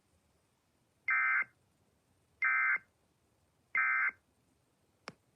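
Three short bursts of Emergency Alert System SAME digital data, the end-of-message signal that closes the warning, evenly spaced about 1.3 seconds apart. A short click follows near the end.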